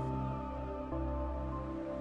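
Background music: slow ambient synth pads with a low drone and held notes that change about a second in.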